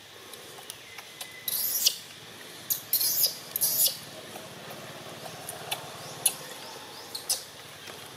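Infant long-tailed macaque giving shrill, hissy squeals in a short cluster of four, between about one and a half and four seconds in, among small clicks. The squeals are the fussing of a hungry baby begging to nurse.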